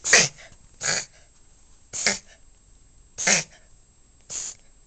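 A dog reverse sneezing: five short snorting intakes through the nose, about one a second. The dog's owners have been told the episode is harmless.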